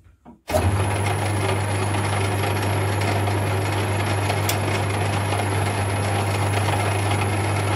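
Metal-turning lathe switched on about half a second in, its electric motor and spinning three-jaw chuck then running steadily with a strong low hum.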